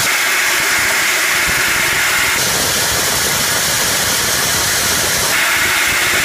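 Copra expeller press running steadily in the mill: a loud, even mechanical hiss and hum, its higher hissing band easing off in the middle and coming back near the end.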